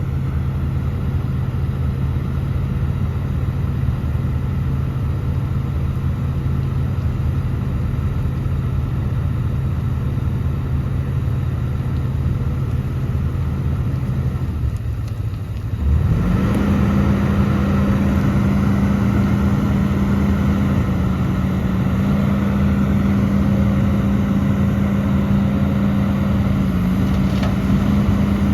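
Heavy diesel engine of earthmoving machinery running steadily at a low pitch. About fifteen seconds in it drops away briefly, then rises to a higher, louder steady speed that it holds.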